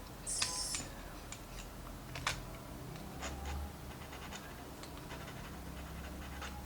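Pen writing on a transparent matte-finish sticker sheet: short scratchy strokes and small ticks, with a brief high hiss about half a second in.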